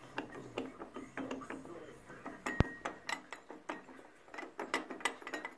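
Sprockets, gears and drive chain of a 1991 DYMB 8 thickness planer rattling and clicking as they are rocked by hand: a run of irregular metal clicks, with one sharp ringing clink about two and a half seconds in. The knocking is the play (backlash) in the planer's drive.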